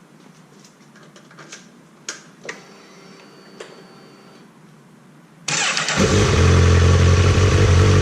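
A few light clicks, then about five and a half seconds in the 2022 Honda CB1000R's inline-four engine is started on the electric starter after a fresh oil change. It catches within half a second and runs at a steady, loud idle.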